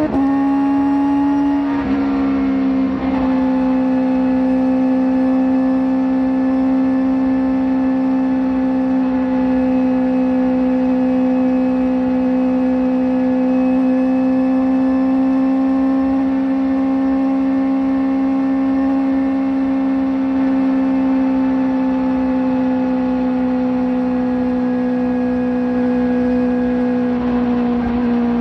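Kawasaki ZX-4RR's 399 cc inline-four running through a slip-on exhaust at high revs. The pitch climbs briefly, dips about two to three seconds in, then holds nearly steady, easing slightly near the end.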